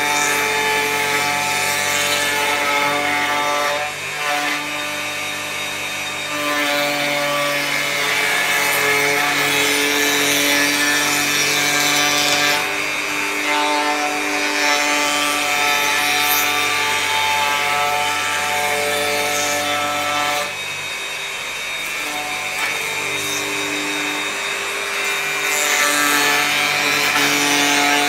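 Electric hand planer running under load as it shaves wooden boards: a steady motor whine whose pitch steps up and down as the cut bites and eases off, dipping briefly about four seconds in and again about three-quarters of the way through.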